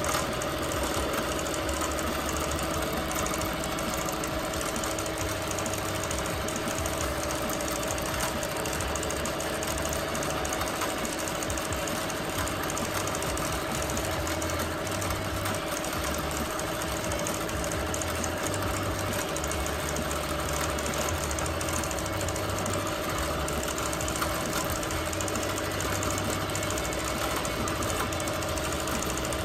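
Bernina Q24 longarm quilting machine running and stitching free-motion: a steady motor hum under fast, even needle stitching, with a low rumble that swells and eases every second or two as the machine head is guided over the quilt.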